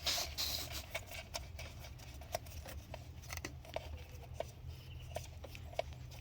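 Light, irregular clicks and small scrapes as a new plastic PCV valve is screwed into the engine by hand. A low steady hum runs underneath.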